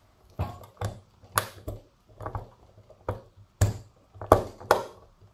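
Irregular sharp metal clicks and taps of a valve-keeper insertion tool against the valve stem and spring retainer of a 4-stroke scooter cylinder head, as tiny valve keepers are pressed into the retainer. About a dozen, some with a light knock under them, the loudest a little past the middle.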